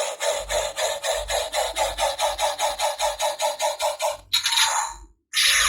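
Kamen Rider W transformation belt toy playing electronic sound effects through its small speaker: a fast repeating pulse loop at about five beats a second that stops about four seconds in. A short sound and a brief break follow, then a new loud effect starts near the end.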